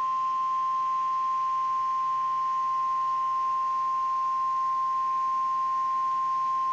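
NOAA Weather Radio 1050 Hz warning alarm tone: one steady, unbroken high tone that switches on abruptly and holds. It signals that a severe thunderstorm warning is about to be broadcast.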